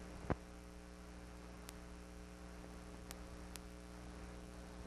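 Steady low electrical mains hum with a faint hiss, the empty soundtrack of an old film transfer; no aircraft sound is heard. A sharp click comes about a third of a second in, and a few faint ticks follow.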